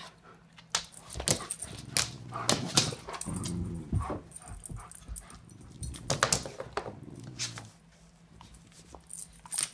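A puppy and a large dog play-fighting: short yips and whimpering vocal noises over scuffling and knocks of paws and bodies on the floor. The noise dies down about three-quarters of the way in.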